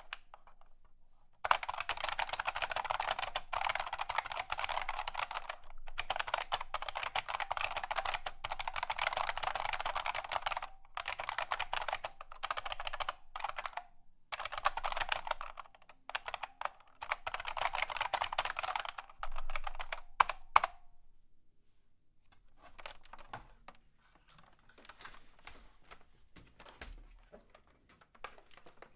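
Mechanical keyboard typed on quickly in long runs of clacking keystrokes with short pauses. About two-thirds of the way through it changes to fainter, scattered key clicks.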